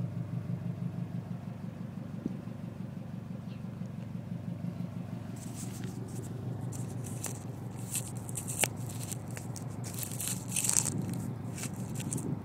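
2003 Subaru WRX's turbocharged flat-four idling steadily through a 3-inch cat-back exhaust with a Cherry Bomb muffler, a low, even rumble. From about halfway in, scraping and crackling noises come and go over it.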